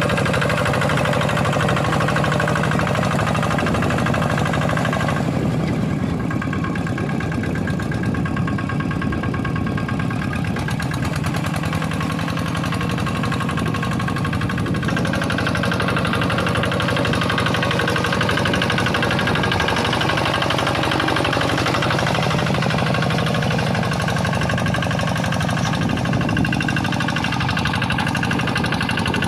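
Kubota single-cylinder diesel engine of a Quick G1000 hand tractor running steadily while ploughing a paddy field, with a knocking diesel beat. Its tone thins about five seconds in and fills out again about fifteen seconds in.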